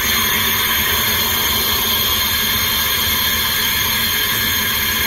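Compressed air hissing steadily and loudly from an EF63 electric locomotive's air brake valve in the cab: brake-pipe air venting for a service brake application.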